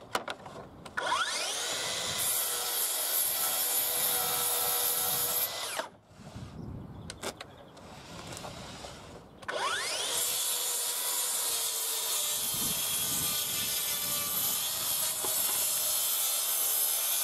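Makita cordless plunge track saw on its guide rail, cutting across the end of a softwood panel. It spins up, rising in pitch, about a second in, runs through a shallow scribe cut and winds down; after a quieter gap with a few clicks it spins up again and runs through the second, full cut to the end.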